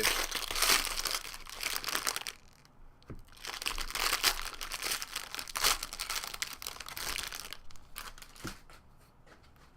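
Trading-card pack wrapper crinkling as it is handled and torn open, in two stretches with a short pause between, fading out near the end.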